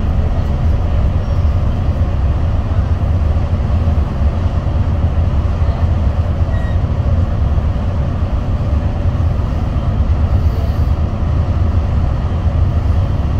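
Steady low rumble of tyre, engine and wind noise inside a vehicle cruising at highway speed.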